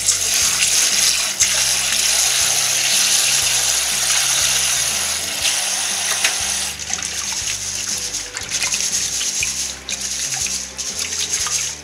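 Tap water running into a stainless steel bowl of glutinous rice in the sink. After about seven seconds the stream stops and a hand swishes and rubs the rice in the water, washing it.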